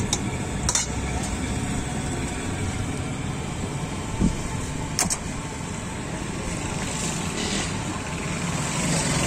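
Steady low background rumble with a few short sharp clicks, about a second in and again about five seconds in.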